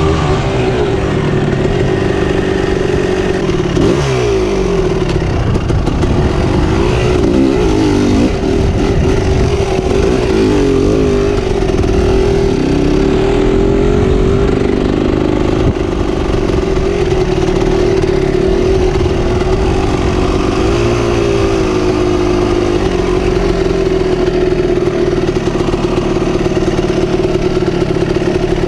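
KTM 300 EXC two-stroke dirt bike engine, revving up and down as it is ridden hard over a dirt track, with the sharpest pitch swings in the first half and steadier high revs later, heard from the rider's helmet camera.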